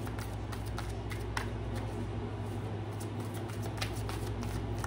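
Tarot cards being shuffled and handled: a scattering of soft card clicks over a steady low hum.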